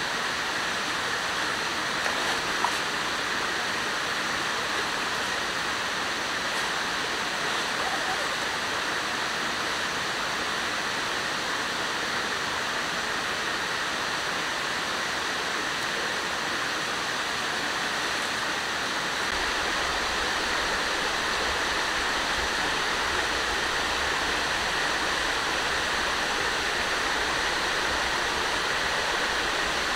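A river rushing steadily, a continuous even hiss of flowing water. From about two-thirds of the way in, a low rumble joins it.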